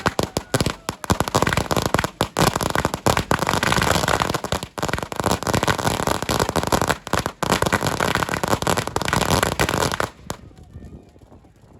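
Fireworks going off in a dense, rapid barrage of bangs and crackles, which cuts off abruptly about ten seconds in.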